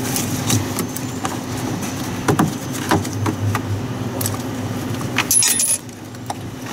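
Sharp plastic clicks and knocks from a Daewoo washing machine's drain valve housing being handled, over a steady low hum. A quick cluster of clicks comes just before the hum drops away near the end.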